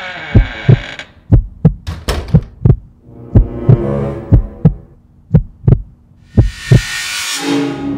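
Heartbeat sound effect: pairs of deep thumps, about one pair a second, over a low droning hum. Near the end a rising whoosh leads into dramatic music.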